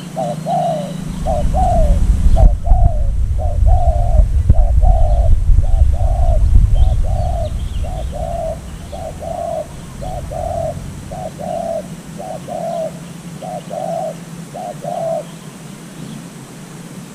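Decoy dove cooing in a steady run of short low coos, about one and a half a second, calling to lure wild doves; the cooing stops shortly before the end. A loud low rumble sits under the coos from about one to seven seconds in, with faint high chirps of small birds.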